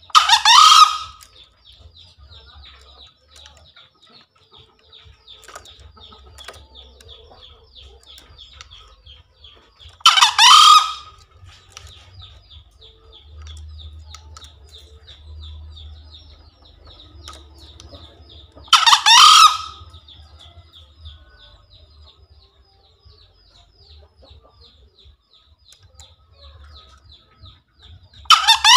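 Green junglefowl rooster crowing: three short, loud crows about nine seconds apart, each lasting about a second, with a fourth beginning at the very end. A faint, rapid, high chirping runs steadily underneath.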